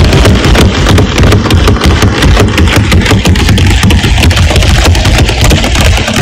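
A loud, steady low rumble.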